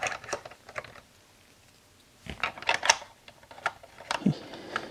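Hard plastic Playmobil toy parts clicking and tapping as figures are fitted into the seats of the toy Porsche: a few clicks at first, a pause, then a quick cluster of clicks a little over two seconds in, followed by scattered taps and a duller knock.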